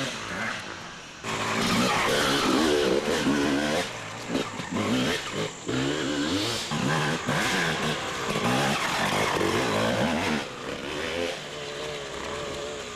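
Dirt-bike engine revving hard and repeatedly as the rider works through a muddy section, its pitch rising and falling again and again, then easing off near the end.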